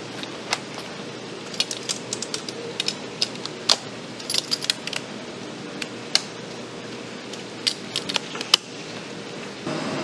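Irregular metal clicks and clinks of a perforated steel lid being set onto a mesh strainer basket and fastened at its rim clasps. The sharpest clack comes near the end, over a steady background hum.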